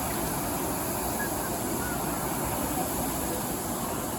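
Many indoor rowing machines running at once during a race, their flywheel fans making a steady whirring noise, with background voices.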